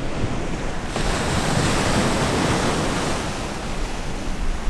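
Lake waves washing against an icy concrete pier, with wind rumbling on the microphone. About a second in the wash turns brighter and hissier.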